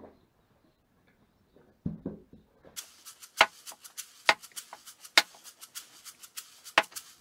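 Axe striking firewood logs on a chopping block: a dull thud about two seconds in, then several sharp, cracking knocks about a second apart as the wood is chopped.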